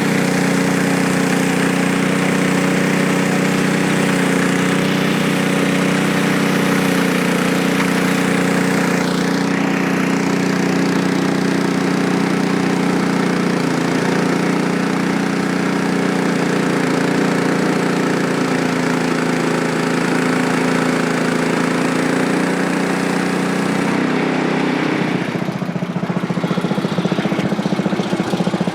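The small gas engine of a Frontier OS23 portable bandsaw mill runs steadily while the blade saws through a log, with a loud hiss over the engine note. About 25 seconds in, the hiss drops away and the engine note changes to a rougher, pulsing sound.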